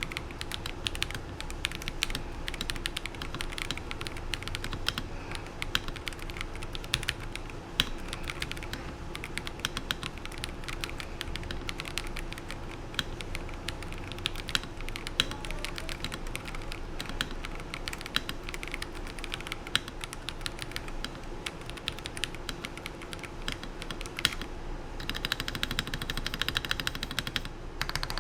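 Typing sound test on a Mathew MK86 mechanical keyboard with KTT Wine Red linear switches: rapid, continuous keystrokes clacking. A brief pause comes near the end, then faster, denser keystrokes.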